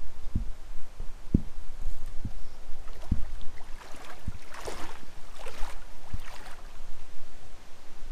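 River water sloshing and splashing in three short bursts about four to six and a half seconds in, over irregular low thumps of wind buffeting the microphone.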